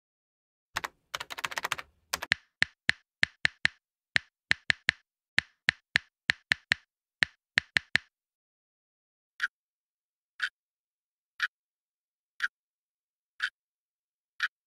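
Keyboard-typing sound effect: a quick run of sharp clicks. It stops, and then a clock ticks once a second, six times, for a countdown timer.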